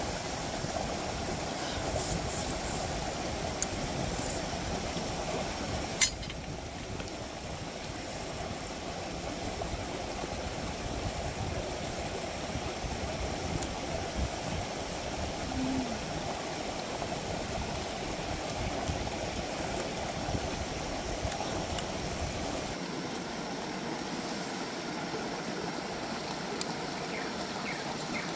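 Steady rush of running water, with a single sharp click about six seconds in; the low rumble under it drops away near the end.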